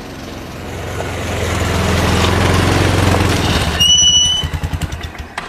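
A large vehicle's engine growing louder as it approaches. About four seconds in there is a brief high brake squeal as it pulls up, and the engine drops to a slow, pulsing idle.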